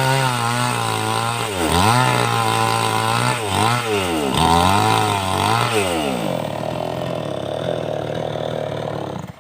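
A 5800-type two-stroke chainsaw with a 22-inch bar running at high revs, its revs dipping and recovering about four times, then dropping to a lower, rough idle about six seconds in and switched off just before the end.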